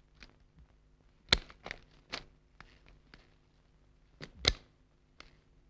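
A scattering of short, irregular clicks and knocks, with two louder ones a little over a second in and about four and a half seconds in, over a faint steady hum.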